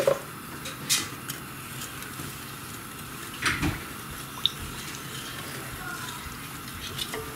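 Wooden spatula stirring rice and cold milk in a stainless steel pot, with a few soft knocks of the spatula against the pot.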